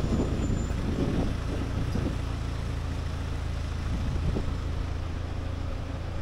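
A motor vehicle's engine idling close by, a steady low hum.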